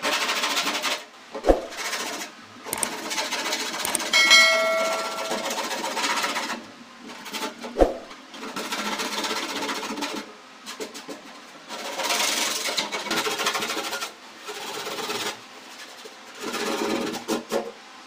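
Sandpaper rubbed back and forth over stapler pins melted into a clear plastic refrigerator vegetable drawer to smooth the repair: a harsh scratching that comes in bursts of a second or two. There are two sharp knocks as the box shifts and a brief high squeal about four seconds in.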